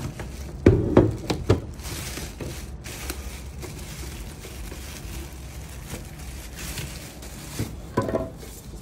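A plastic wrapping bag crinkling as a sandwich maker is pulled out of it, with a few sharp knocks about a second in and another near the end as the appliance is handled and set down on a table.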